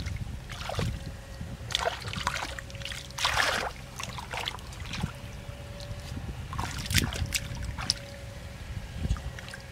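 Hands churning and groping through shallow muddy water, with irregular splashes, sloshes and drips; the longest slosh comes a little over three seconds in.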